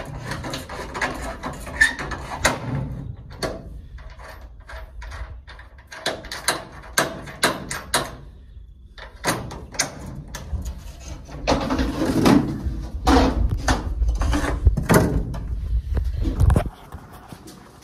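A wooden cage frame and its wire mesh being handled and fitted by hand: a run of clicks, knocks and rattles, growing heavier and denser in the last few seconds before stopping suddenly.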